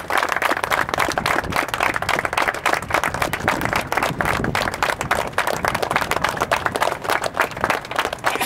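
A crowd applauding, many hands clapping at once without a break.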